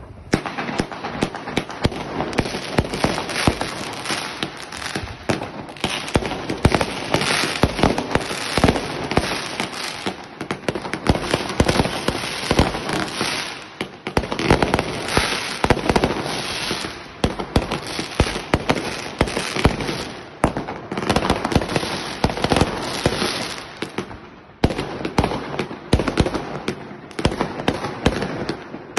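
Funke Supernaut 2 fireworks battery firing: a dense, continuous run of shot launches and crackling bangs, dipping briefly a few times before picking up again.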